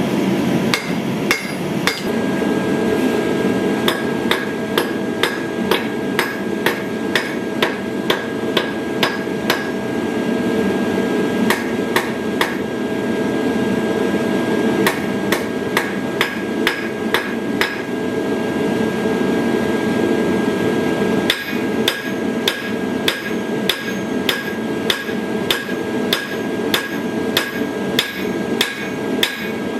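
Hand-forging: hammer blows on steel at the anvil, about two a second, each strike leaving the anvil ringing, over a steady low rushing noise.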